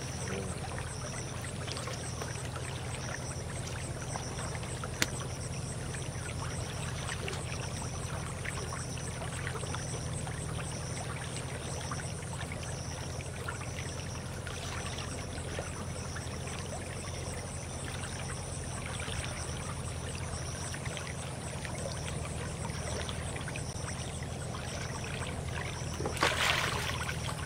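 Shallow canal stream running and trickling steadily, with a faint high pulse repeating about every two-thirds of a second. A sharp click comes about five seconds in, and a brief louder burst of noise near the end, as the hand line is worked at the water's edge.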